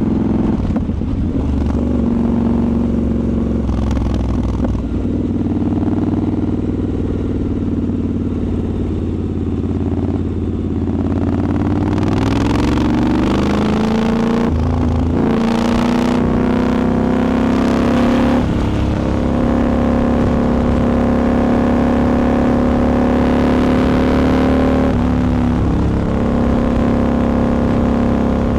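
Triumph Scrambler 1200's parallel-twin engine running under way, heard onboard. The revs climb about twelve seconds in, dip briefly, climb again, hold steady, and change once more near the end.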